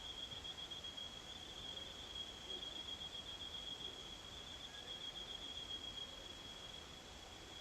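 An insect trills steadily at a high pitch, a rapid pulsing that does not stop, with a couple of faint short rising chirps underneath.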